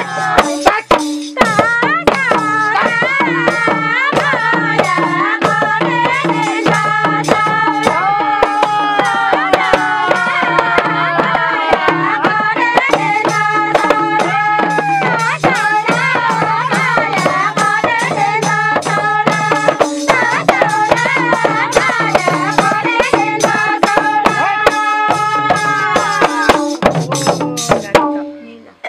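Group singing of a Nepali Chutke Bhaka folk song, voices rising and falling in melody, over quick, steady strokes of a madal hand drum. The sound drops away sharply about a second before the end.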